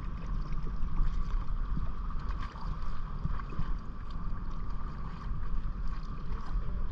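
Sea-Doo Switch jet-drive pontoon boat's engine running steadily, with wind buffeting the microphone.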